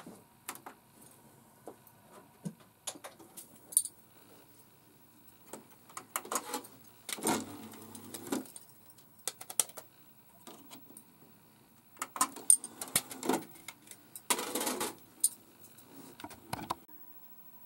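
Plastic DVD case and disc being handled and loaded into a DVD player: a string of sharp plastic clicks and clatters, with a few longer rattling bursts about seven, twelve and fourteen seconds in.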